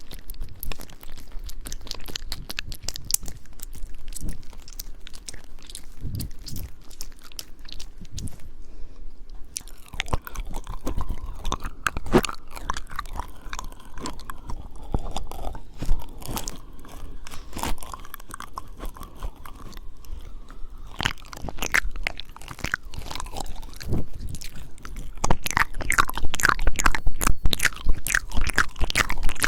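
Close-up ASMR mouth sounds on the microphone, ear licking and "ear eating": a dense run of wet clicks, smacks and crackles, like chewing, growing louder in the last few seconds.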